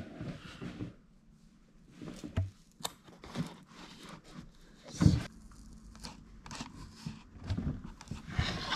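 Hands handling a paper milk-carton planter and a plastic-bottle planter while pressing on tape labels: scattered taps, rustles and small knocks, the loudest knock about five seconds in, with a longer noisy rustle near the end.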